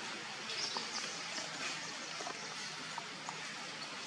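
Outdoor background ambience: a steady hiss with a few faint short ticks scattered through it.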